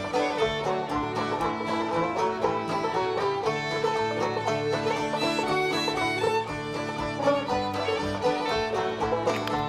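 Background bluegrass-style string-band music with banjo and fiddle and a steady beat.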